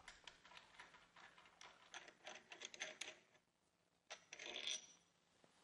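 Very faint metallic clicking and light handling noise as the crankshaft vibration damper's centre bolt is unscrewed through a holding tool, with a slightly louder cluster of clicks about four seconds in.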